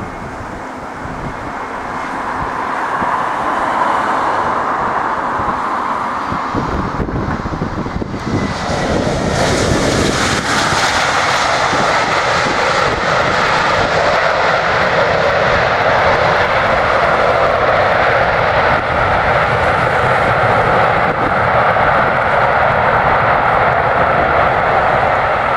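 Airbus A320-232's IAE V2500 jet engines on final approach, growing louder as the airliner nears. From about nine seconds in, a louder steady engine noise takes over as the aircraft rolls out on the runway after touchdown.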